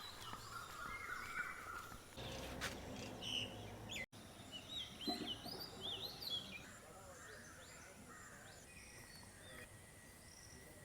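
Several small birds chirping with short, quick rising and falling calls over faint outdoor background noise. The sound drops out completely for an instant about four seconds in.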